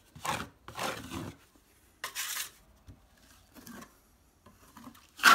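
Drywall knife spreading and scraping quick-setting joint compound over a ceiling drywall patch: a series of short rasping strokes, with a sharper, louder scrape near the end.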